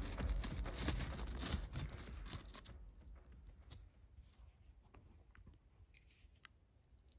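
A louder sound fades out over the first three seconds, leaving faint, scattered crunches of footsteps on ice-crusted snow.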